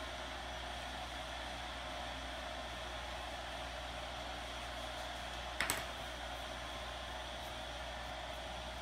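Steady background hiss of room noise, with one brief double knock a little past halfway.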